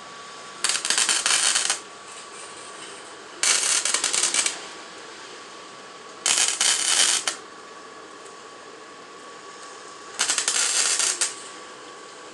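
Welder laying spot welds on a car's sheet-metal roof skin: four short runs of welding sputter, each about a second long, a few seconds apart.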